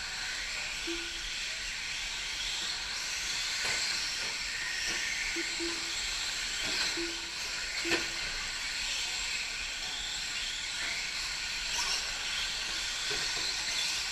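Electric 4WD RC short-course trucks racing on an indoor clay track: a steady high whine and hiss from the motors and tyres. Short beeps sound now and then, and a few sharp knocks from the trucks landing or hitting the track, the loudest about 8 seconds in.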